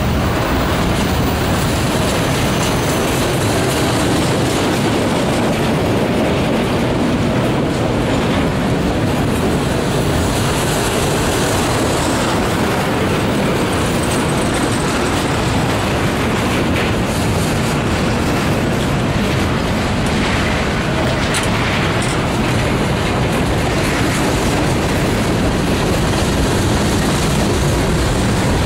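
Freight cars of a mixed freight train, flatcars and then covered hoppers, rolling past: a steady rumble of steel wheels on the rails.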